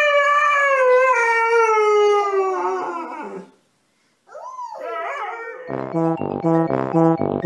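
A husky-type dog gives one long howl that slides slowly down in pitch for about three and a half seconds. After a short pause comes a brief, shorter call. About two seconds before the end, bouncy music with a regular beat takes over.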